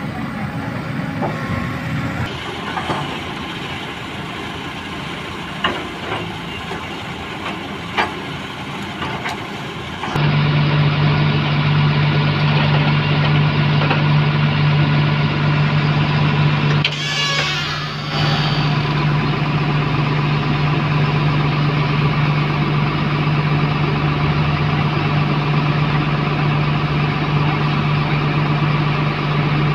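Heavy diesel engines of a JCB excavator and a tipper truck running while the excavator loads soil, with a few sharp knocks in the first third. About a third of the way in, a loud steady engine drone takes over, broken by a brief hiss a little past halfway.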